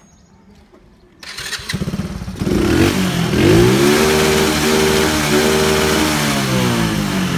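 Small carbureted underbone motorcycle with a nine-cut modified exhaust, started about a second in after a brief crank. It catches at once, revs up and holds at high revs for a few seconds, and the revs begin to fall near the end.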